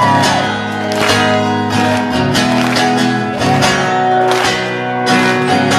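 Live rock band playing, with strummed guitar chords over a steady beat.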